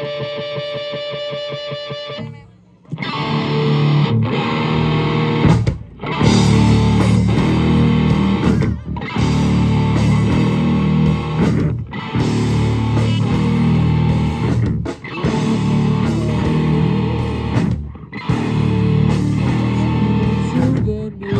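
Live rock band of electric guitars and a drum kit. A held, ringing guitar chord cuts off about two seconds in. Then the full band comes in hard, stopping briefly about every three seconds in a stop-start riff.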